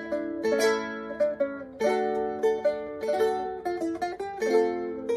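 Four-course Renaissance guitar with eight Nylgut strings, plucked fingerstyle: a quick melody of single notes and chords, each note starting sharply and ringing briefly before it fades.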